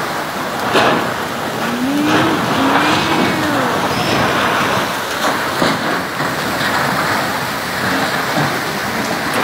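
Storm wind and heavy rain strong enough to tear roofing sheets loose: a loud, steady rush of noise, broken by a few sharp knocks.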